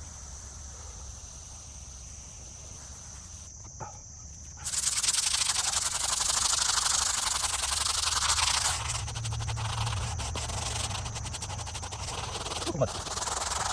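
Brush scrubbing a mold-covered gravestone with fast back-and-forth strokes, starting about a third of the way in and going on to the end. Before the scrubbing, insects make a steady high chirring.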